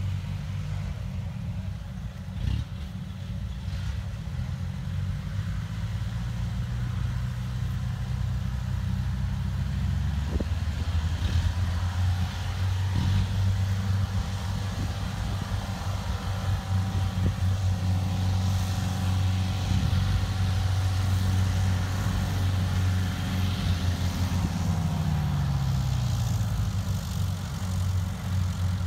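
Combine harvester engines running steadily with a low hum; about 25 seconds in, one engine's pitch drops.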